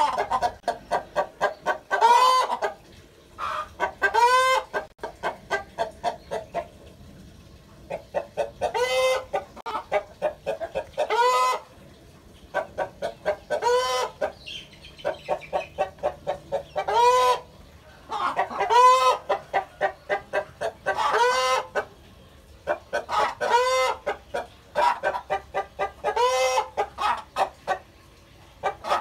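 Bangkok (Thai gamefowl) chickens clucking: runs of quick clucks, each bout carrying a louder drawn-out arched call, repeating every two or three seconds with short pauses between bouts.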